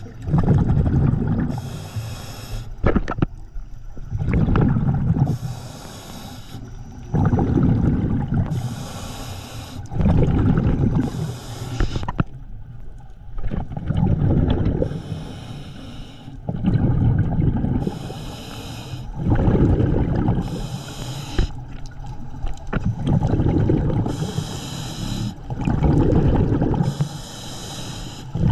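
Scuba diver breathing through a regulator underwater: a hissing inhale with a faint whistle, then a rumble of exhaled bubbles, repeating about every three seconds.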